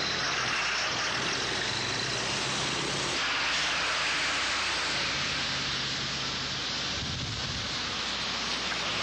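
Road vehicles driving by, a low engine drone under a steady hiss; the drone fades about three seconds in, returns, and a brief low rumble comes near the end.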